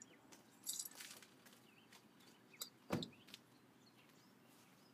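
Mostly quiet, with a short rustle under a second in and a single dull thump about three seconds in, over faint bird chirps.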